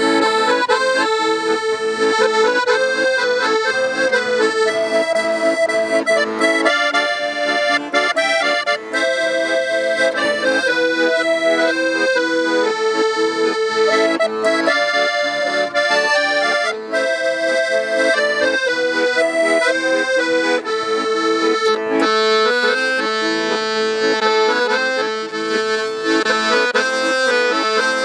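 Instrumental music with no singing: a melody line moving over held chords, at a steady, even loudness.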